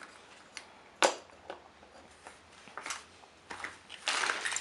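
Hands working sand in a sandbox and moving small toys: a sharp click about a second in, a few light taps, then a gritty scrape of sand being pushed near the end.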